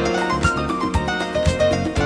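Smooth R&B music: plucked, harp-like melody notes over a steady bass beat.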